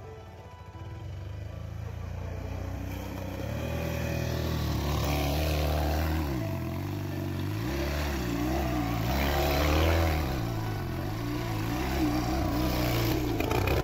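Quad bike engine revving up and down as the ATV spins and turns in loose dirt. It grows louder over the first few seconds as it comes closer.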